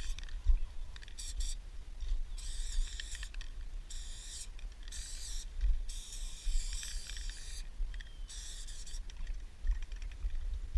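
Aerosol spray-paint can hissing in repeated bursts, each half a second to a second and a half long, as the nozzle is pressed and released, over a low rumble.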